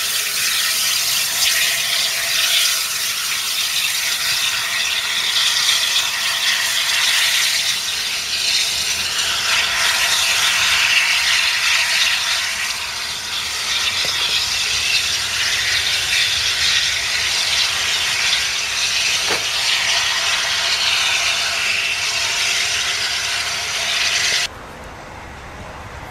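Peppercorn A1 Pacific steam locomotive 60163 Tornado moving slowly as a light engine, with a loud, steady hiss of steam from its open cylinder drain cocks. Near the end the sound drops abruptly to a much quieter background.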